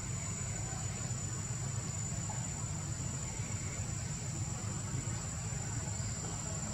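Steady outdoor ambience: a continuous low rumble with an unbroken high-pitched insect drone over it.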